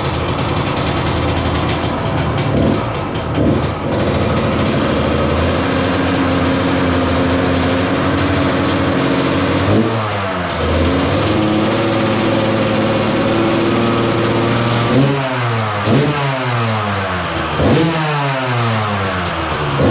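Kawasaki KX125 two-stroke single-cylinder engine running unevenly at a fast idle, after standing for 19 years. About halfway the revs sag and pick up again; near the end the throttle is blipped four times, each rev rising sharply and falling back.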